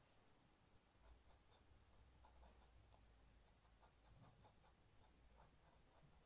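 A dip pen's nib scratching faintly across paper in a run of short strokes.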